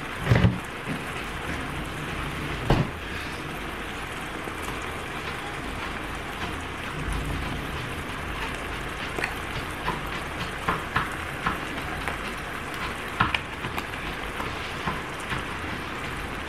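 Ground beef sizzling in a hot cast-iron skillet, a steady frying hiss with scattered crackles and pops. Two dull knocks come in the first few seconds.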